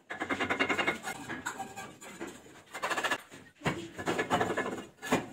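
Bursts of rapid scraping and rubbing from a brick hammer working a red brick into place in an arch, in three stretches with short pauses between.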